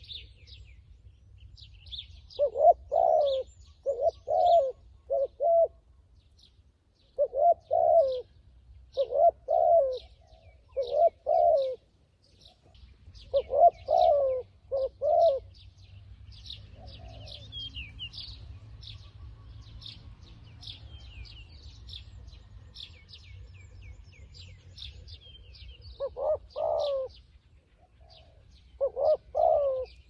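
Dove cooing close by in short phrases of two to four notes, repeated several times with a pause of about ten seconds in the middle. Small birds chirp throughout.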